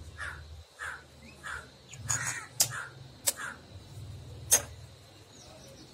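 A crow cawing over and over, and three sharp taps of a hen's egg being cracked against the rim of a stainless steel bowl, the last tap the loudest.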